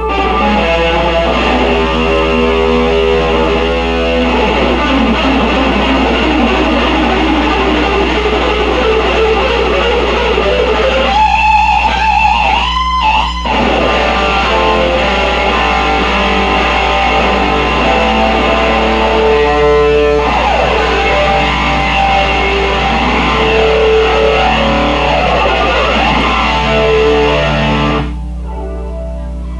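Electric guitar solo through an effects-laden amplifier: fast runs of notes, a high held note bent upward about halfway through, then the playing breaks off sharply near the end. A steady low hum lies under it.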